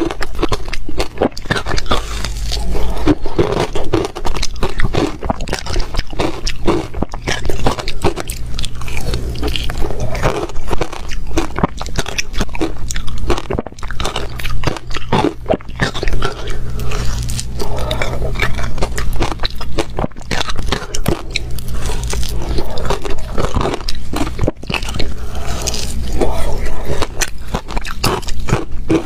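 Close-up crunching of ice being bitten and chewed, a rapid, irregular run of cracks and crunches with a steady low hum beneath.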